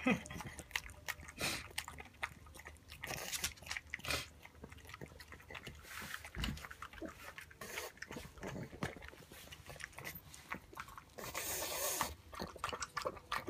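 A pug eating soft dessert from a bowl: a run of irregular wet smacks, licks and chewing clicks, with a longer breathy noise a little before the end.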